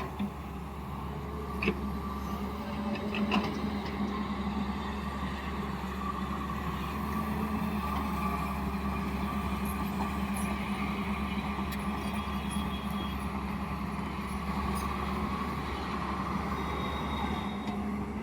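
Backhoe loader's diesel engine running steadily, with a few faint knocks.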